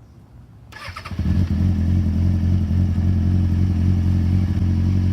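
2004 Kawasaki ZX-6R's 636 cc inline-four engine starting: a brief starter clatter under a second in, then it catches and settles into a steady idle.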